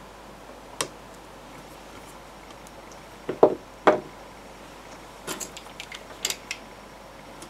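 A thin pick prying at the seam of a Sonos Play:1 speaker's plastic back plate: a single click about a second in, two solid knocks about halfway through, then a quick run of small sharp clicks.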